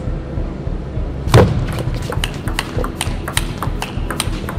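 Table tennis rally: a quick, irregular run of sharp clicks as the celluloid ball is struck by the bats and bounces on the table, over a low steady hall hum. The loudest sound is one heavier thud about a second and a half in.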